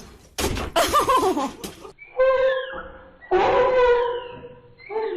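Animal calls: a loud wavering whine, then a few drawn-out, steady-pitched cries.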